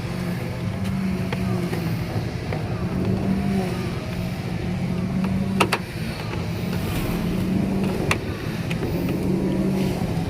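Small engine of a grass-cutting machine running steadily, its hum dipping and resuming every couple of seconds, with a few sharp clicks about five and a half and eight seconds in.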